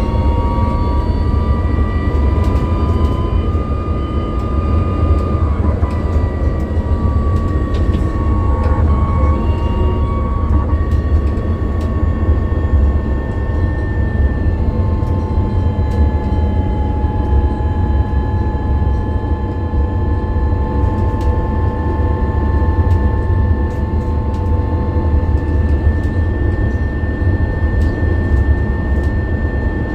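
MAN Lion's City 12E battery-electric bus's traction motor whining over a steady low rumble. The whine's pitch sags slowly through the first half, then holds steady.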